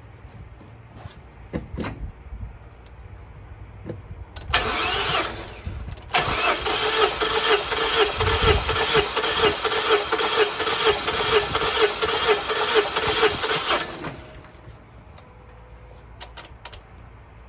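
2014 Mazda 3's 2.0-litre four-cylinder engine being cranked over by the starter with its spark plugs removed for a compression test, so it turns without firing. A brief burst of cranking about four seconds in, then steady cranking for about eight seconds with an even rhythmic pulse from the compression strokes, stopping suddenly.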